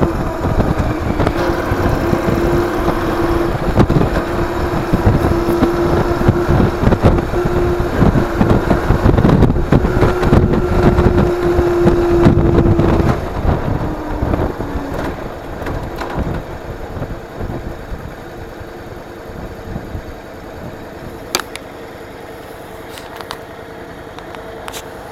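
Vehicle engine running at a steady pitch under heavy wind buffeting on a vehicle-mounted action camera's microphone. About halfway through the engine tone fades and the sound drops, as the vehicle slows down, then settles to a quieter steady running, with a few sharp clicks near the end.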